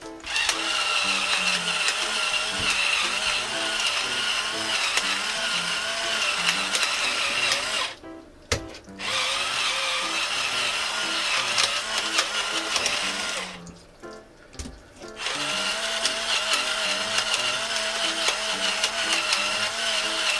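Electric pepper mill grinding black pepper onto raw chicken breasts: a steady motor whine with the grinding burr, in three runs, stopping briefly twice.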